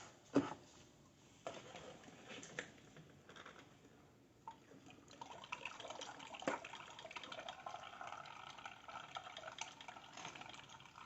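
Water being poured into a container, faint: a few light clicks and drips at first, then a steady filling sound from about five seconds in.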